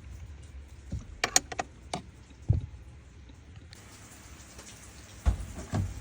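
Sharp clicks and knocks from work on a truck's dashboard as it is disassembled: a quick cluster of clicks about a second in, then a few dull thumps.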